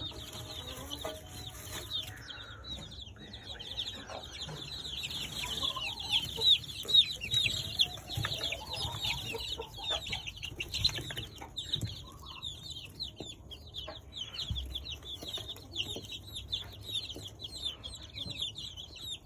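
A brood of young chicks peeping nonstop: many short, high, falling cheeps overlapping one another, with a few lower calls and scattered knocks mixed in.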